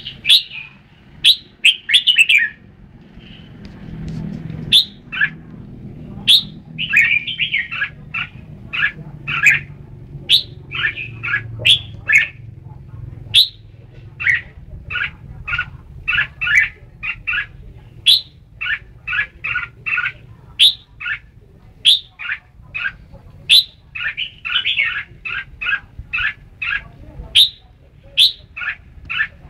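Red-whiskered bulbul singing: a rapid run of short chirping notes repeated again and again, with brief pauses between phrases. A faint low rumble sits underneath for a couple of seconds near the start.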